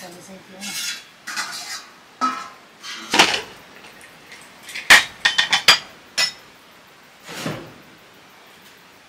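Metal kitchen utensils clattering and scraping against cooking pots: a string of separate scrapes and knocks, with a quick run of four or five sharp clinks about five seconds in.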